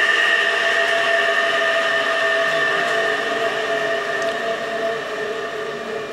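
Three-phase induction motor fed by a Danfoss VLT soft starter, running with a loud, steady electrical whine made of several fixed tones. It starts suddenly just before this and grows gradually quieter toward the end. The motor is running under test after the soft starter's repair.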